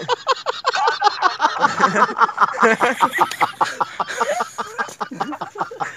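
Men laughing hard, in quick repeated bursts, mixed with excited talking.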